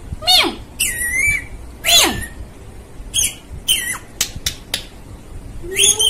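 Rose-ringed (Indian ringneck) parakeet squawking and calling: a string of high calls, some gliding steeply down in pitch, with a few sharp clicks about four seconds in.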